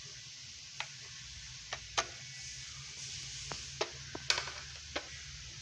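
About seven sharp clicks and taps at irregular intervals over a steady hiss and low hum. No motor sound: the drone's propellers are not running.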